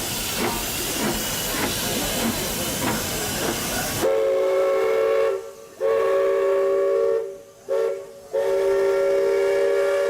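Steam locomotive hissing with a steady beat of exhaust puffs, about two a second. After an abrupt cut, a replica Baldwin three-chime steam whistle sounds its chord in two long blasts, a short one and a long one: the grade-crossing signal.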